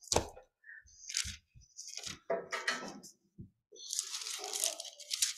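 Bible pages being turned and rustled while looking for a passage: a series of short, irregular rustles with a few small knocks.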